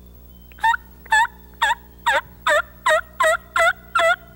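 Hen turkey yelps from a hunter's turkey call: a steady run of about nine short, loud yelps, each note breaking from high to low, starting under a second in at roughly two to two and a half a second.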